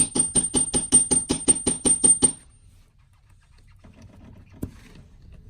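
Rapid hammer blows on a steel bolt, about five a second with a high metallic ring, stopping a little over two seconds in; one more single knock comes near the end. The bolt is being driven into bread packed behind a rotary engine's pilot bearing to force the bearing out hydraulically.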